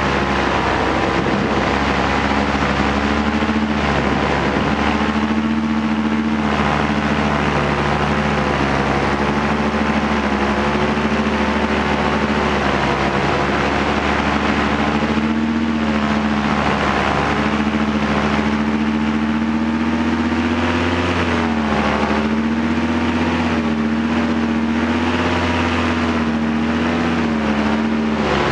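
Polini Thor 202 single-cylinder two-stroke paramotor engine and propeller running steadily in flight, its pitch dipping briefly a few times as the throttle is eased and opened again.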